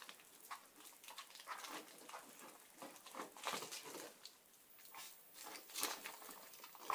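Shiba Inu puppies moving about on a wood-look floor: quiet, irregular patter and clicks of their paws and claws, with small puppy noises.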